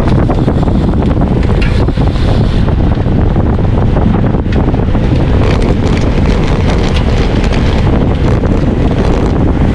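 Wind buffeting the microphone of a camera on a road bike riding at racing speed: a loud, steady low rumble of wind noise.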